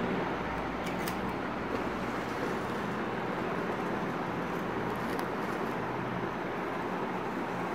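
Steady background hiss with a faint low hum, and a few faint crinkles as tinsel garland is handled, about a second in and again near five seconds.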